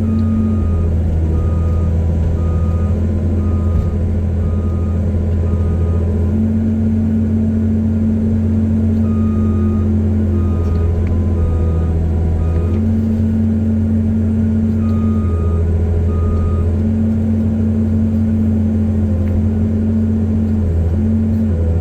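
Cat 320C excavator's six-cylinder diesel engine running under changing load, with its travel alarm beeping about one and a half times a second in three separate spells.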